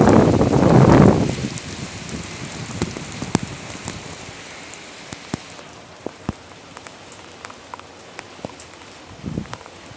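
Thunderstorm rain, with sharp clicks of drops striking close by. It opens with a loud, low burst of noise lasting about a second and a half, then eases to a steady quieter hiss with scattered drop hits.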